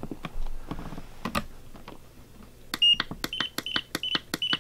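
Tactic TTX850 radio transmitter's throttle trim being stepped up: a row of short, high, evenly pitched beeps, about two to three a second, each with a small button click, starting a little past halfway. Before that, a few light clicks of handling.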